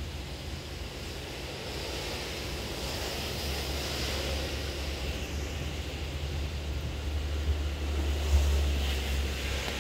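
Outdoor background noise: wind buffeting the microphone in a low, fluttering rumble over a steady hiss, with a couple of stronger gusts near the end.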